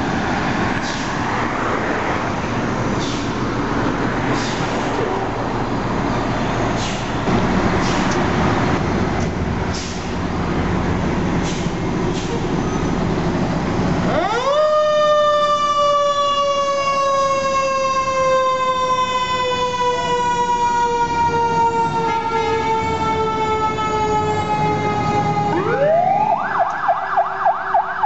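Fire engine's motor running as the truck pulls out, with a few short knocks. About halfway through a siren winds up quickly and then falls slowly in pitch for several seconds. Near the end it rises again and a fast warbling yelp siren starts.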